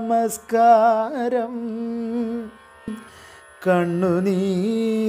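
A man singing a Carnatic devotional line in raga Varali, holding and bending notes with wavering ornaments. He breaks off about two and a half seconds in and takes up the next line about a second later.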